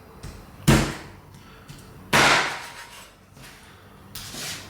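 Kitchen knife chopping hard through raw chicken onto a cutting board: two sharp whacks about a second and a half apart.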